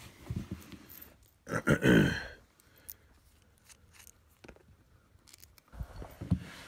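One short throaty vocal sound from the person about two seconds in, the loudest thing here. Otherwise faint clicks of a small bolt, washer and nut being handled, and a couple of dull knocks near the end.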